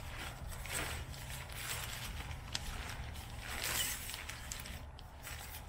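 Tent fabric being handled: intermittent rustling and scraping of the canvas, with one light click, over a steady low hum.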